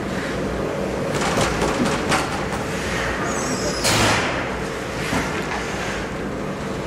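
Indoor ice hockey rink ambience during a stoppage in play: skates scraping on the ice and scattered clicks over a steady low hum, with one short, loud scraping hiss about four seconds in.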